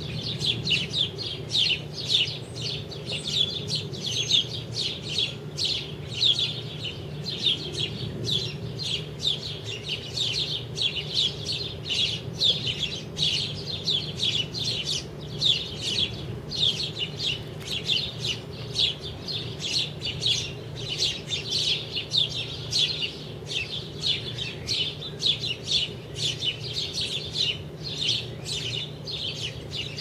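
A group of house sparrows chirping continuously, many short overlapping chirps a second, over a steady low hum.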